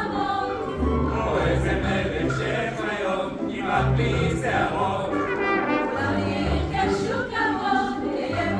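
Choir singing with an orchestra, brass prominent, over a steady pulsing bass line.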